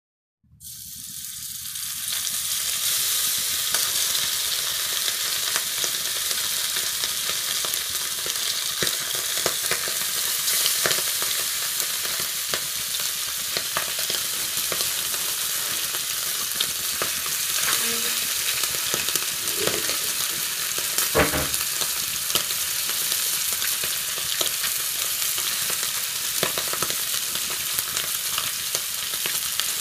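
Masala-coated whole fish shallow-frying in hot oil in a wide pan: a steady sizzle with scattered crackles and small pops, building up over the first couple of seconds, and one louder pop about two-thirds of the way through.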